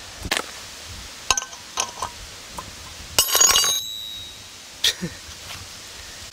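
Steel tools clinking against a trailer wheel hub as a bearing puller and wrenches are set up: a few light, separate clicks, then a quick cluster of clinks about three seconds in with a brief metallic ring.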